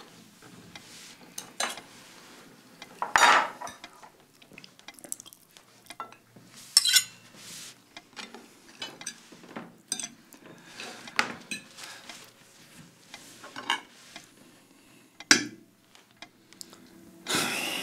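Cutlery clinking and scraping against plates during a meal: scattered light clinks, a few sharper ones, and a longer scraping sound near the end.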